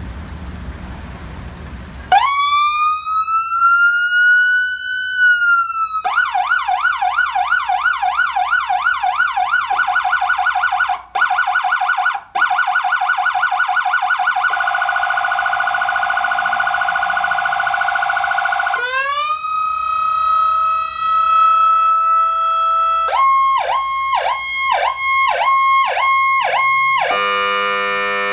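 Electronic vehicle siren cycling through its tones: about two seconds in a slow wail rises and falls, then a fast yelp, a faster warble, a steady held tone, a tone pulsing about twice a second, and near the end a horn-like chord. The first two seconds are low road or engine noise before the siren starts.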